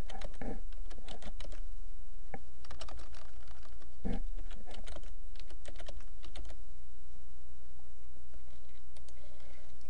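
Typing on a computer keyboard: scattered key clicks over the first six seconds or so, then only a few, over a steady low hum.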